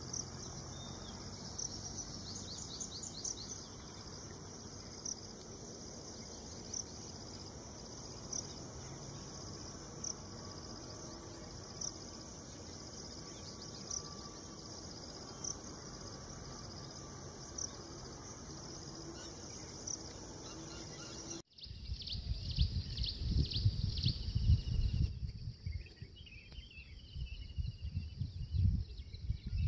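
Outdoor wildlife ambience: a steady background hiss with a short, high chirp repeating about every second and a half and a brief fast trill a couple of seconds in. About two-thirds of the way through, it cuts abruptly to loud, irregular low rumbling on the microphone with bird calls over it.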